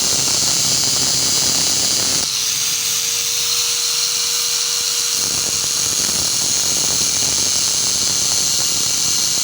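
Steady, loud, high-pitched hissing from a workshop tool, with a faint steady whine from about two to five seconds in.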